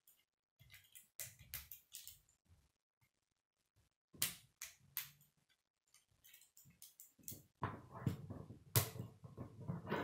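Hard plastic K'nex rods and connectors clicking and snapping together as pieces are fitted by hand. The clicks come one at a time at first, then turn into a denser clatter from about seven and a half seconds in.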